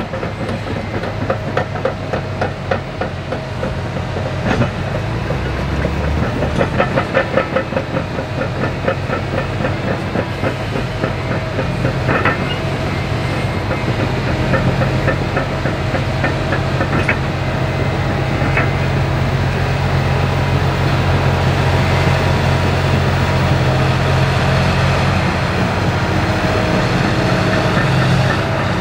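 Heavy diesel mining machinery running steadily: a CAT 6020B hydraulic mining shovel and a crawler dozer. Fast clanking of steel tracks runs through the first dozen seconds, then gives way to a steady engine drone that grows a little louder toward the end as the shovel swings a loaded bucket.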